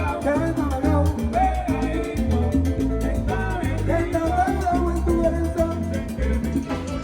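Salsa music playing, with singing over a pulsing bass line.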